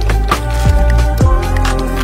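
Background electronic music with a steady beat: deep kick drums dropping in pitch about twice a second under held synth tones.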